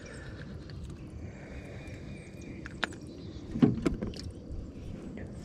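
Quiet outdoor ambience with a faint steady hiss while a caught bass is handled by hand, with one sharp click near the middle and a brief low vocal sound about a second later.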